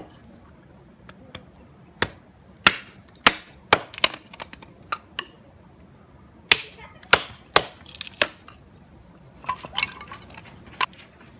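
Irregular sharp clinks and knocks of hard objects being handled, coming in clusters with short gaps between.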